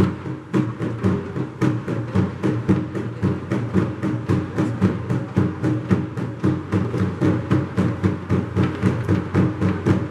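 An ensemble of djembes and other hand drums playing together in a steady, driving beat, about three strokes a second.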